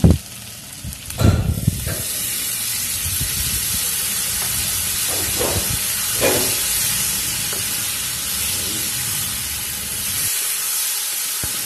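Turmeric-and-salt paste thinned with water hits hot mustard oil in a wok with a sudden burst about a second in, then sizzles with a steady loud hiss while potatoes, drumstick stems and onions are stirred with a spatula.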